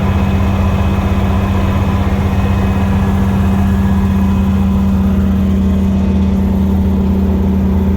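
Car engine droning at a steady highway cruise: one loud, constant low hum with no change in revs.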